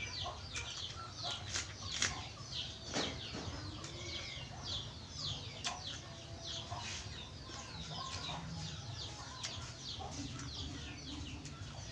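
Chickens peeping: a steady run of short, high, falling peeps, about three a second, over a low steady hum, with a few sharp clicks.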